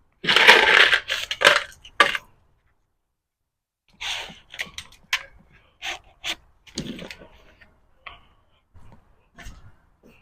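9mm cartridges being pressed one at a time into a magazine by hand: a string of short metallic clicks and clinks, the magazine spring getting harder to push down as it fills. A louder scraping, rustling burst of handling comes in the first two seconds.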